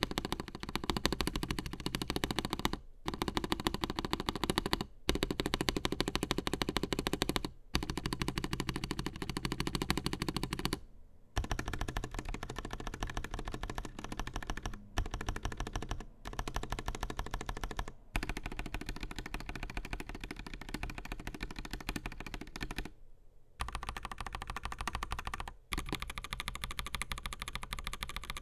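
Fast typing on an AKKO 5075S mechanical keyboard with Akko CS Crystal linear switches, a polycarbonate plate, gasket mount and PBT Cherry-profile keycaps: a dense run of rapid key clacks, broken by brief pauses every few seconds.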